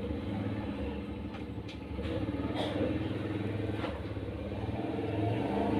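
A motor running steadily with a low, wavering hum, with a few faint clicks near the middle.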